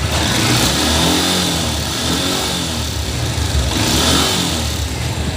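Honda X-Blade motorcycle engine revved twice in neutral, its pitch rising and falling each time. Under the revs there is a light tappet noise, which the owner takes for loose valve tappets that might instead turn out to be a worn timing chain kit.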